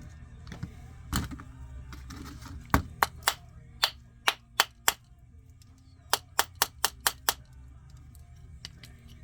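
Sharp clicks of small metal hardware and tools being handled on a hard work surface during chainsaw disassembly. There is a soft knock about a second in, then seven separate clicks, then a quicker run of six more.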